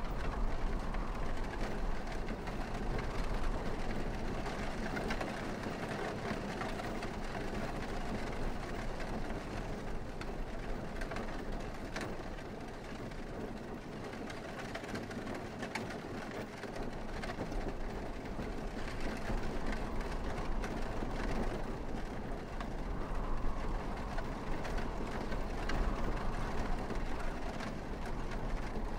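A steady mechanical rumble with a deep hum under it, easing a little in the middle and building again.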